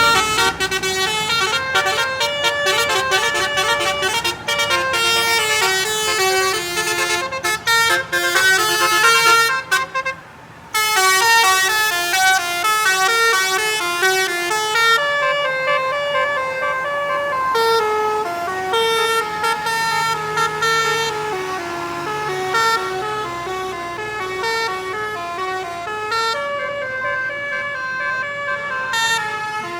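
Basuri, a bus's musical 'telolet' horn, playing a fast tune of stepping notes, with a short break about ten seconds in.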